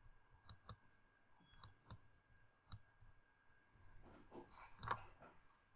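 Faint computer mouse clicks, a few sharp single clicks scattered over the first three seconds, with a fuller soft noise around four to five seconds in.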